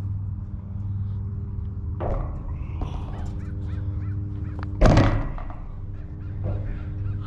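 Feet landing on an aluminum bleacher bench about five seconds in: a single loud metallic thud with a short ring, picked up through the bench the camera rests on.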